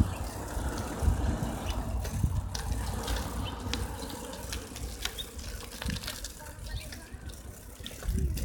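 Wind rumbling and buffeting on a handheld camera's microphone while it moves along, coming in gusts, with scattered light clicks of handling.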